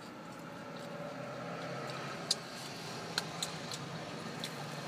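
Steady low vehicle hum heard from inside a car cabin, swelling slightly over the first second or two. A few sharp faint clicks sound over it, the loudest about two seconds in.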